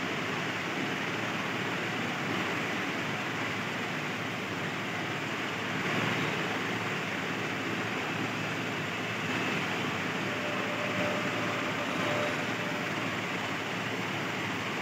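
Steady, even background noise with no rhythm or pitch, like a running machine or ventilation; it stays level throughout.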